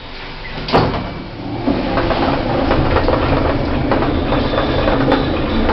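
Small hydraulic passenger lift setting off and travelling down: a clunk a little under a second in, then a steady rumble and hum of the car moving in the shaft.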